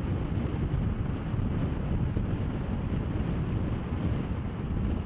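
Wind buffeting a microphone mounted outside a moving car, over a steady low rumble of engine and road noise.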